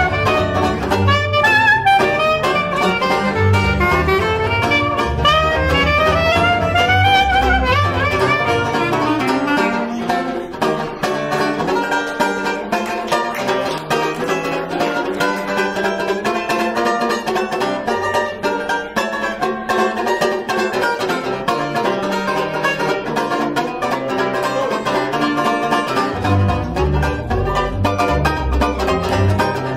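Small traditional jazz trio of clarinet, banjo and double bass playing. Clarinet melody over the banjo and walking bass for about the first ten seconds, then the banjo carries on mostly alone with quick chorded strokes, and the bass comes back in near the end.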